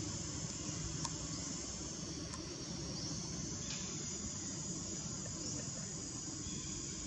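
Steady outdoor ambience of insects: a continuous high hiss with a few faint short chirps and light clicks.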